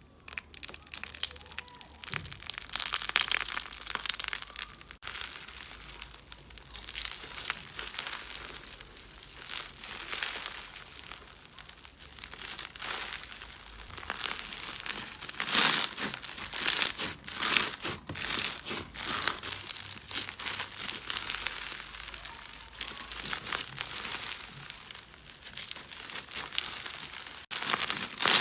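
Slime being squeezed and pressed by hand, giving an irregular run of wet crackles and pops, loudest in a cluster past the middle.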